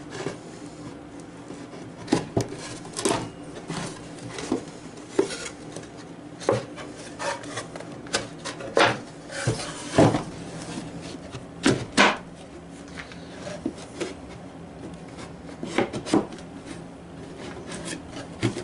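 Wooden box sides of old-growth southern yellow pine being pushed together by hand at their interlocking corner joints: scattered, irregular wooden knocks and clicks with some rubbing as the joints seat, the sharpest knocks about ten and twelve seconds in.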